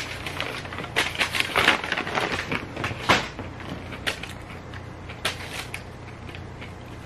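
Brown paper takeout bag crinkling and rustling as it is handled and napkins are pulled from it: a flurry of quick crackles in the first few seconds, thinning to a few scattered rustles later.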